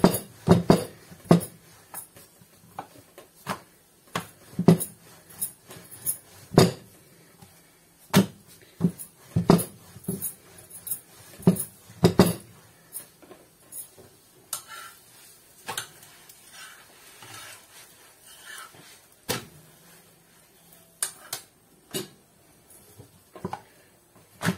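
Kitchen utensils clinking and knocking against pans and dishes in sharp, irregular strikes. The strikes come thick in the first half and grow sparse toward the end.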